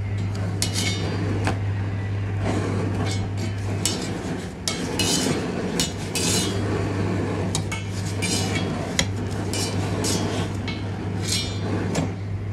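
Metal tongs clinking and scraping against a tawa and a gas stove's grate as a roti is turned and puffed over the flame. The clicks come irregularly over a steady low hum.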